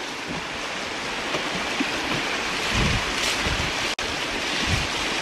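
Fast, choppy river water rushing steadily past a wooden canoe, with low buffets of wind on the microphone near the middle and near the end. The sound drops out for an instant about four seconds in.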